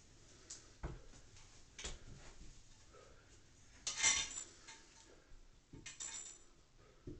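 Scattered knocks and metallic clinks from handling tools and hardware while fitting a grab bar to a tiled tub wall, with the loudest clinking about four seconds in and more around six seconds.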